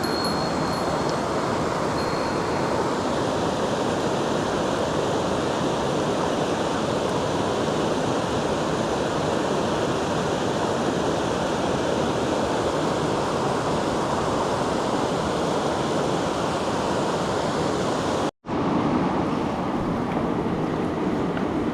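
Steady rushing of a mountain stream's water. The sound cuts out for a moment about eighteen seconds in, then carries on.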